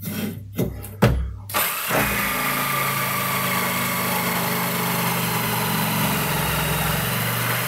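Makita electric jigsaw with a Bosch T101AO wood blade, switched on about a second and a half in and sawing across a 30 mm wooden bar, running steadily with a motor whine and the rasp of the blade. A few knocks from setting the saw on the wood come before it starts.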